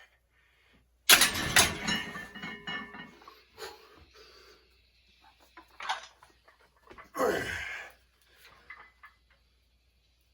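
Gym weights put down: a sudden loud clank with brief ringing about a second in, then scattered knocks and a second loud burst around seven seconds.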